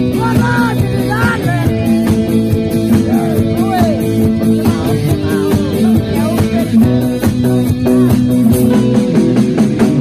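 A rock band playing live: a male singer's sung phrases over electric guitars, electric bass and a drum kit keeping a steady beat.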